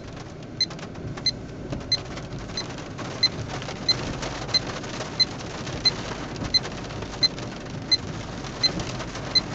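A 2011 GMC Sierra's Duramax diesel V8 idling, heard inside the closed cab, with a short, sharp electronic tick repeating evenly about one and a half times a second.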